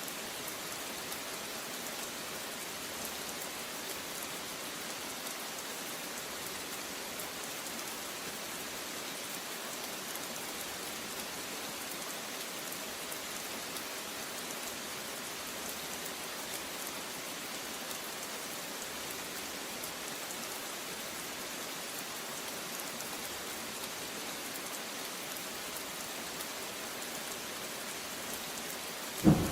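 Steady heavy rain falling, an even hiss with no change for most of the time. A loud thunderclap breaks in right at the very end.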